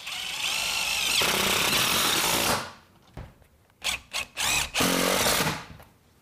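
Cordless impact driver running pancake screws through a steel Z closure into a standing seam metal panel: one long run of about two and a half seconds, then a few short bursts and a last run of about a second as the next screw is driven and seated.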